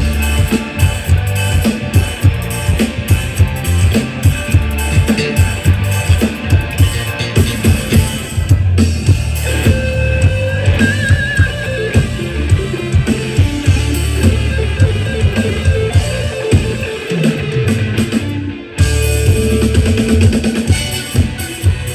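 Live mor lam band playing an instrumental through a large PA sound system during a sound check: a drum kit keeping a steady beat under bass and electric guitar. The music drops out for a moment near the end, then comes straight back in.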